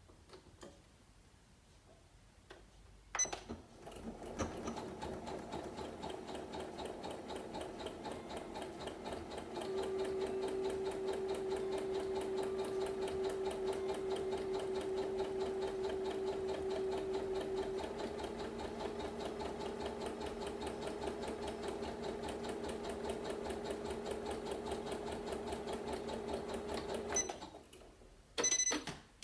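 Janome MC9900 sewing machine stitching a zigzag seam through felt. It starts after a click a few seconds in and runs with a steady, even stitching rhythm, louder for several seconds in the middle. It stops near the end, followed by a couple of clicks.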